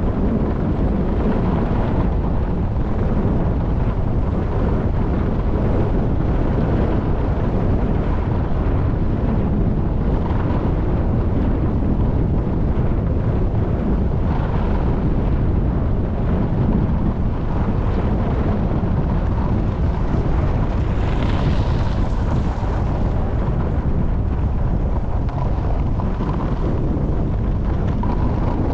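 Wind rushing over the microphone of a skier going downhill at speed, mixed with the rumble of skis running on groomed spring snow. A brief brighter hiss rises about three-quarters of the way through.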